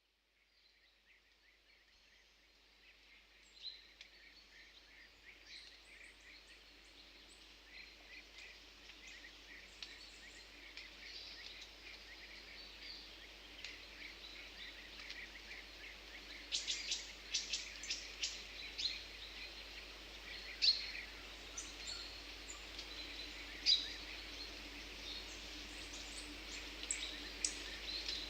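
Several songbirds chirping and singing over a faint steady hiss, fading in from silence at the start and getting busier in the second half, with quick runs of chirps.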